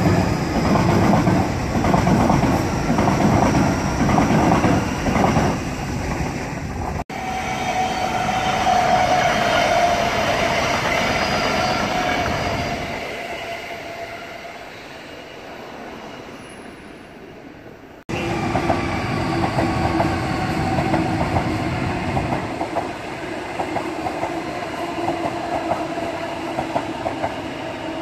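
Sydney Trains Waratah double-deck electric trains passing: wheels clatter over the rail joints, and a steady electric motor whine fades as one train leaves. A second train then passes with the same clatter and whine.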